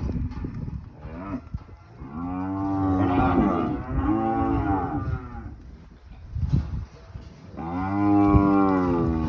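Cattle mooing: a short call about a second in, then long drawn-out calls from about two seconds in, and another starting near the end.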